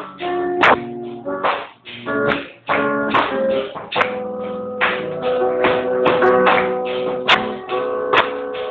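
Electric guitar being played: sharp strummed chords and picked notes left to ring, with a long held chord from about four seconds in. Recorded through a Nokia 3110 phone's microphone, so the sound is dull, with the top end cut off.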